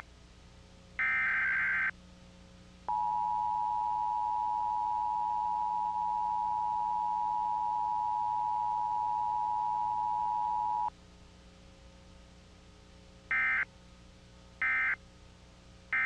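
Emergency Alert System tornado-warning tones: a second-long screech of SAME digital header data, then the EAS two-tone attention signal (853 and 960 Hz together) held steady for about eight seconds, then three short end-of-message data bursts about a second apart near the end.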